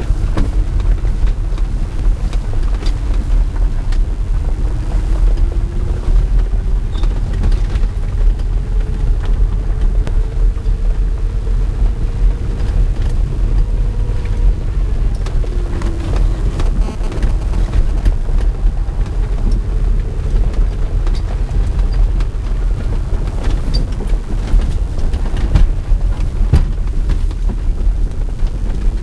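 Reva G-Wiz electric car on the move, heard from inside the cabin: a loud low rumble of road and wind noise with frequent small knocks and rattles, and a faint whine from the electric drive that rises and falls in pitch as the speed changes.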